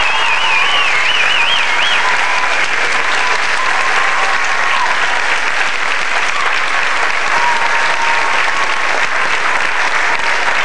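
Audience applauding steadily, with a high, wavering whistle from the crowd in the first two seconds.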